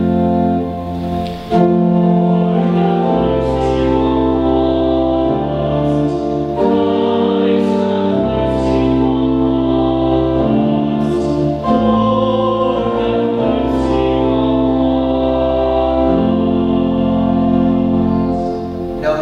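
Church organ playing slow, sustained hymn-like chords that change every couple of seconds, with voices singing along.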